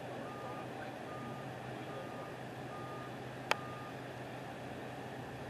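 Truck's reversing alarm beeping at a steady single pitch, about one short beep a second, stopping a little before four seconds in, over a steady low hum. A single sharp click just before the last beep.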